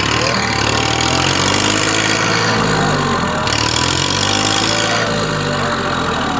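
A farm tractor's diesel engine running loudly, its pitch rising and falling as it revs up and down. The engine is under load while the tractor is mired nose-deep in a muddy pond.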